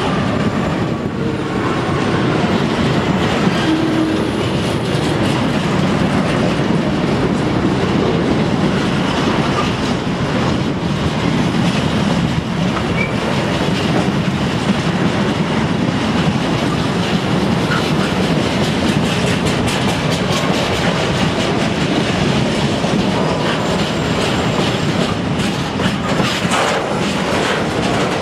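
A Class 66 diesel locomotive passing at the head of a freight train, followed by its loaded container wagons rolling by in a steady, loud rumble, with the wheels clattering over rail joints and points.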